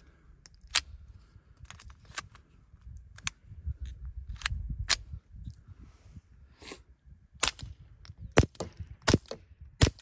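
Suppressed .22 LR pistol shots: a Ruger Mark IV 22/45 SSH with an integral suppressor firing CCI Quiet Semi-Auto subsonic rounds. About a dozen sharp, quiet cracks come at uneven spacing, faster in the second half, over a low rumble.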